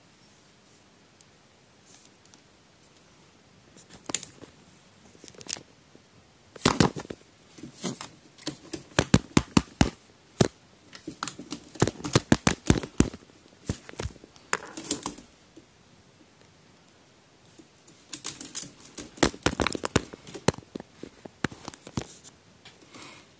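Sharp taps and clicks in quick bursts, densest through the middle and again near the end: a young crow pecking at the phone held up to it.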